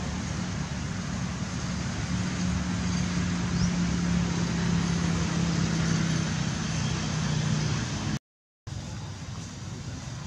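Steady low hum over a constant background hiss. About eight seconds in, the sound cuts out completely for a split second and returns quieter.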